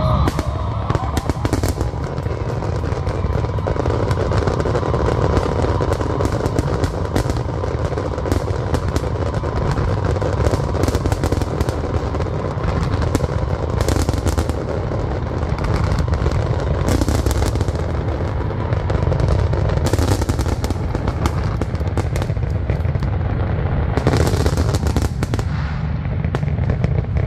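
Aerial fireworks display: a dense, continuous crackling and popping of many shells over a constant low booming rumble. Several louder flurries of crackle come in the second half.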